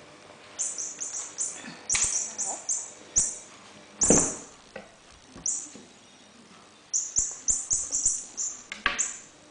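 Runs of short, high, falling chirps, several a second in bursts, with a few sharp knocks, the loudest about four seconds in, as an Ocicat kitten plays.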